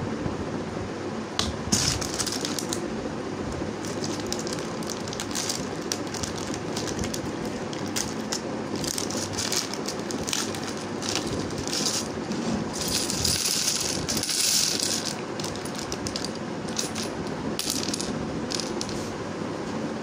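Small plastic building bricks clicking and rattling as they are handled in a plastic bag and tipped out onto a table. Irregular clicks run throughout, with a denser stretch of clatter about two-thirds of the way through.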